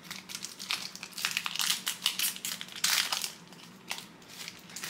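Wrapper of a trading card pack crinkling as it is handled and torn open, a run of sharp irregular crackles, loudest about three seconds in.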